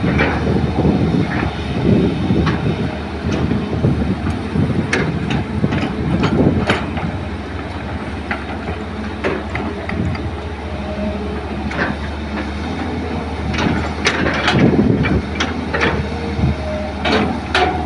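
Hydraulic excavator's diesel engine running steadily under load while it digs and loads soil into dump trucks. Irregular knocks and clatters of the bucket and falling earth and stones sound over the drone.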